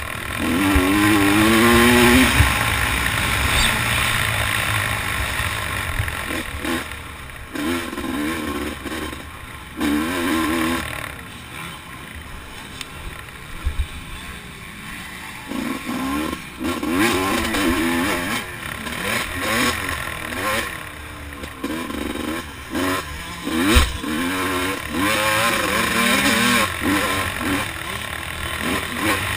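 Dirt bike engine revving up and down repeatedly as the rider throttles on and off around a motocross track, heard from a helmet-mounted camera with wind rumble on the microphone. The engine eases off for a few seconds in the middle, and there are a couple of sharp knocks.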